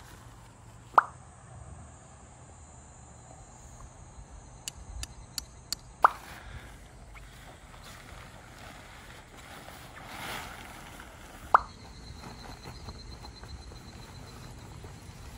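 Three short, bright plops about five seconds apart, each dropping quickly in pitch, with a few faint clicks in between.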